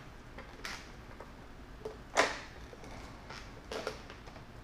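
A few light clicks and knocks from hands fitting RC submarine drive shafts onto their dog-bone couplings inside the hull. The sharpest click comes a little over two seconds in.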